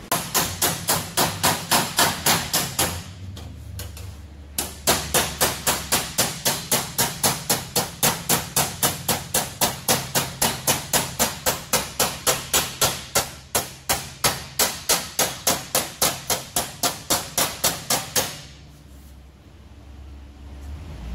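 Hand hammer striking sheet metal clamped over a steel bar in a bench vise, forming a bend in it. The blows are steady, about four a second: a short run of about three seconds, a pause of about a second and a half, then a long run that stops a few seconds before the end.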